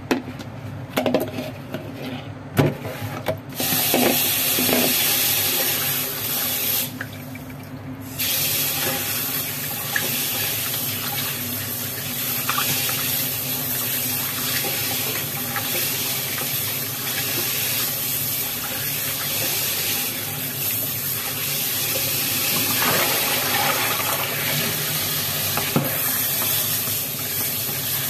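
Kitchen tap running into a plastic basin in a stainless steel sink while hands rub and rinse pieces of raw oxtail. A few knocks and clatters come near the start as the meat is tipped in from a colander. The water then runs steadily, with a short break about seven seconds in.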